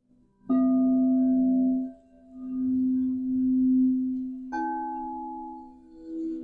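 Frosted quartz crystal singing bowls ringing. One is struck about half a second in and rings a long low note that swells and fades. A second, slightly higher bowl is struck about four and a half seconds in, and the two notes ring together.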